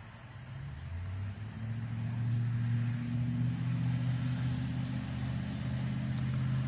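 A motor starts up about a second in and runs with a steady low hum that rises slightly as it gets up to speed. Crickets chirp steadily throughout.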